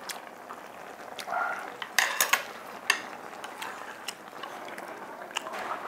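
Light clicks and clinks of chopsticks and tableware against plates and bowls during a meal, a quick cluster of several about two seconds in and a few scattered others.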